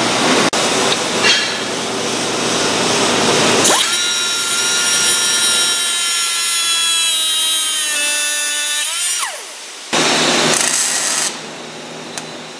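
Angle grinder with a cutoff disc cutting off the end of a steel chain splice pin: a harsh grinding noise, then a high whine that sags slowly and winds down about nine seconds in. About a second later, a MIG welder crackles for roughly a second, tacking the nut so it can't spin off.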